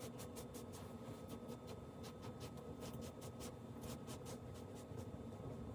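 Faint, quick scratching strokes, several a second and uneven, over a steady low electrical hum.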